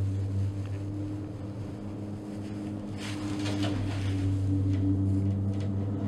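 Gondola lift cabin riding down its cable: a steady low hum inside the cabin, with a brief rattling rush about three seconds in as the cabin passes a lift tower.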